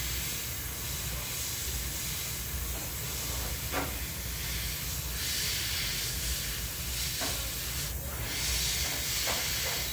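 Gravity-feed airbrush spraying green paint over a white base coat: a steady hiss of air and atomised paint from the nozzle over a low hum. The hiss grows a little louder about halfway through and again near the end.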